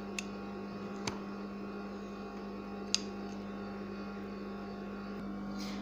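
Steady low electrical hum with three faint, sharp metallic clicks from a screwdriver working a screw on the underside of a tipped-over sewing machine.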